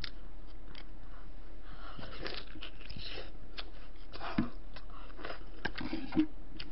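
Small clicks and soft tearing noises of fingers and chopsticks pulling beef off a short-rib bone over a wooden bowl, with two brief low mouth sounds partway through.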